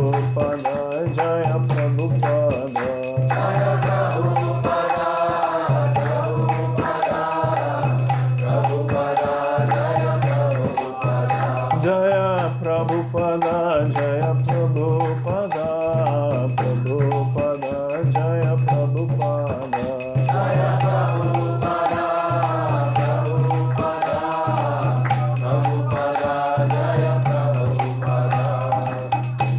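Devotional kirtan: voices singing a chanted melody over a steady low drone that breaks off and returns every second or two, with small hand cymbals clinking in an even rhythm.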